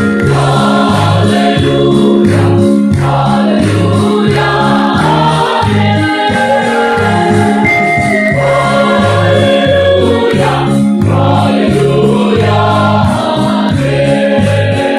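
Mixed choir of men and women singing a gospel song loudly and fervently, over instrumental backing with a steady, pulsing bass line.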